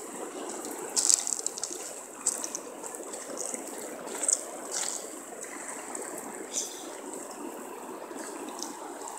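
Rio Grande river water flowing and rippling at the bank, a steady rush, with a few short sharp crunching or splashing sounds scattered through.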